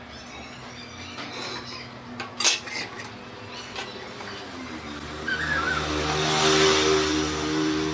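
Light metallic clinks and a sharp knock, then about four and a half seconds in an electric motor hums up in pitch and keeps running steadily with a hiss.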